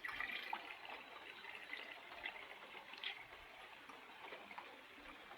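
Antifreeze being poured from a jug into a truck's cooling system: a faint trickle of liquid dotted with small irregular ticks.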